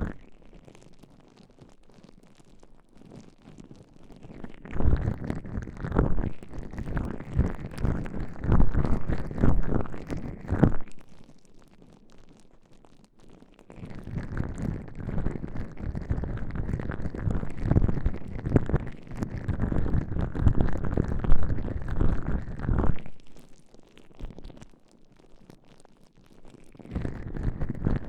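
Gloved hands massaging baby oil and gel over ear-shaped binaural microphones: muffled, slippery rubbing with wet crackles. It comes in two long bouts with quiet pauses between and starts again near the end.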